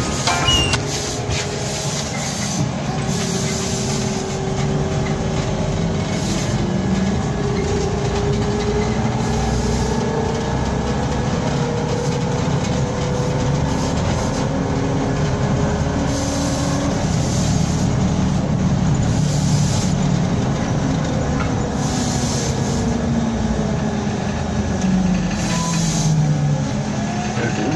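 Cabin noise of a BKM-32102 trolleybus on the move: a steady rumble of wheels and body with the electric traction drive's whine rising in pitch as it speeds up over the first half, then falling as it slows near the end.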